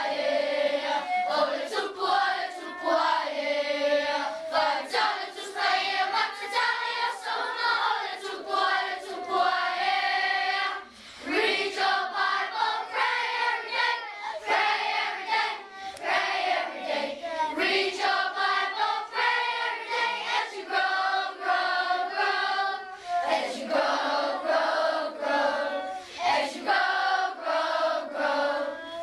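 A large children's choir singing together, with a short break in the singing about eleven seconds in.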